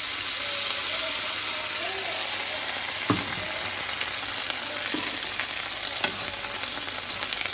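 Chopped pumpkin, kale and other vegetables sizzling in a hot oiled frying pan as hot water from a kettle is poured in, with a few sharp clicks about three, five and six seconds in.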